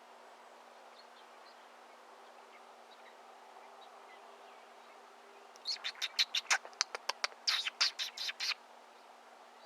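A bird calling in a quick run of sharp, short chips, about five a second for nearly three seconds, starting about halfway through, over a faint steady background hum.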